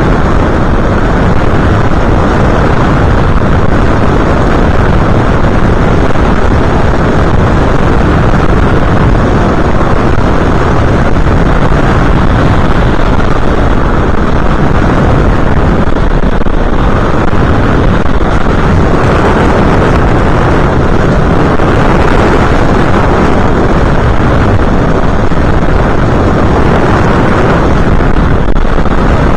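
Loud, steady rush of wind buffeting the onboard camera's microphone on an FPV aircraft in flight, with no distinct motor tone.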